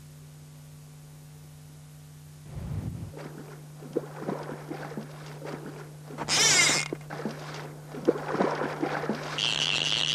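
Water splashing as a salmon thrashes at the surface, over a steady low hum: a dull thud about two and a half seconds in, then irregular splashes, the loudest about six seconds in. Near the end a steady high hiss with a whine sets in.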